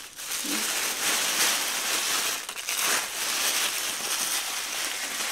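Thin plastic grocery bag crinkling continuously as it is pulled over the head and handled and tucked around the hair.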